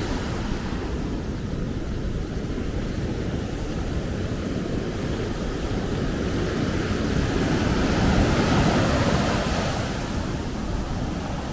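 Heavy, storm-driven ocean surf breaking, with foamy water washing up the beach. It swells louder a little past halfway through.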